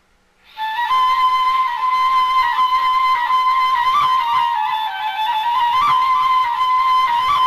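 Flute playing a single melodic line with small ornamental turns over a breathy tone, starting about half a second in.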